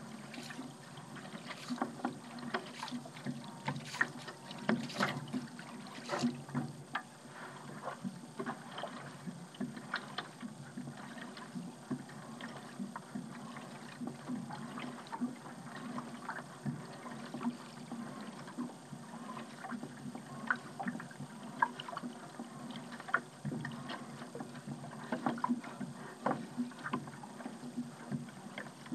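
A hand paddle dipping and pulling through sea water, with many small irregular splashes and drips and water lapping along a small paddle craft.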